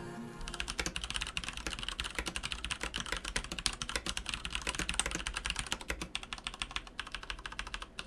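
Fast typing on a WASD V2 mechanical keyboard with Cherry MX Brown tactile, non-clicky switches: a dense, continuous run of keystrokes that thins out near the end.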